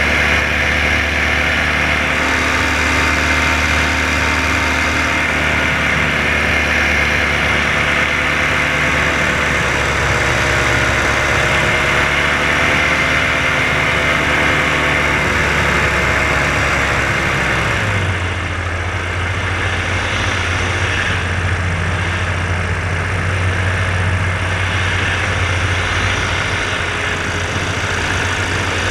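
Paramotor's Polini two-stroke engine and propeller running steadily in flight, its pitch wavering slightly. About two-thirds of the way through, the sound abruptly turns duller and lower.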